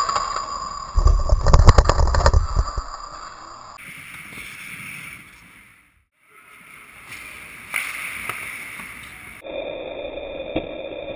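Players crashing into the hockey goal right at the net-mounted camera: about a second and a half of heavy thumps and clattering, with the camera shaking. Then fainter rink noise that fades out and back in at a video transition.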